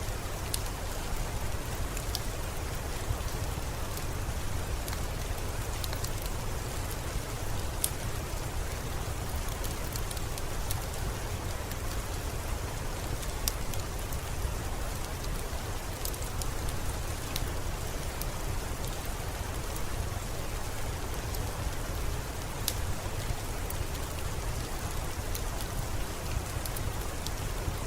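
Steady rain falling, an even hiss with a low rumble under it, dotted with scattered sharp ticks.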